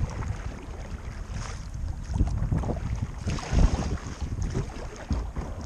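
Kayak being paddled: uneven paddle strokes and water splashing about the hull, with wind rumbling on the microphone.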